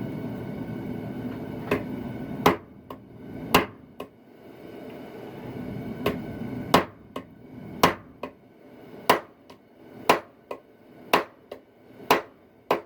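Blacksmith's hammer striking hot steel on an anvil while forging a knife blade, sharp blows mostly in pairs, about one pair a second. A steady low rushing noise runs under the first blows and stops about two and a half seconds in.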